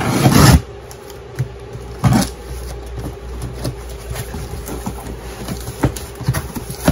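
Packing tape ripped off a cardboard shipping box: one loud tear in the first half second, a shorter one about two seconds in, then cardboard flaps scraping and rustling as the box is opened. A steady low hum runs underneath.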